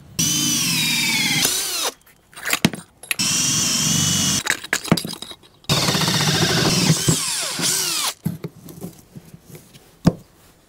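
Makita 18V cordless drill driving a hole saw through the wooden van floor in three runs of a second or two each, the motor's whine dropping in pitch as the saw bites. Scraping and clicks between the runs, and a sharp knock near the end.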